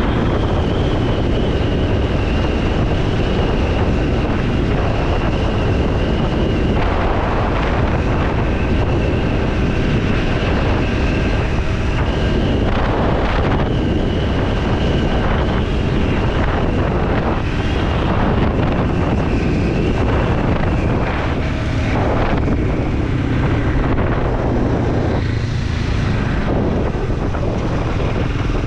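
Triumph Scrambler 400 X's single-cylinder engine and exhaust running steadily while the motorcycle is ridden on the road, with heavy wind noise on the microphone.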